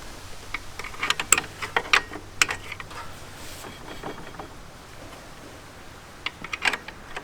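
Irregular small metallic clicks and taps as a flathead screwdriver works the brake adjuster through the back of a John Deere garden tractor's brake drum, backing the pads off slightly from the point of drag. The clicks come in a cluster in the first few seconds and again near the end.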